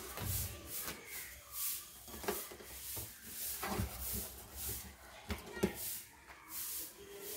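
Banana-leaf parcel rustling and crackling under the hands as it is bound with fibre string, in irregular short rustles.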